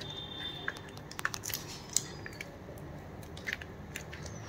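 Faint crackling and small clicks of wet fiberglass casting tape being wrapped and pressed smooth by gloved hands around a dog's foreleg.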